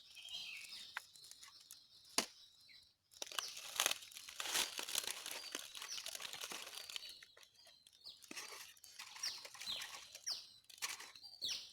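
Rustling and crinkling of close handling as birdlime-coated sticks are fixed onto a twig, with scattered clicks. In the second half, short high chirps of small birds come again and again.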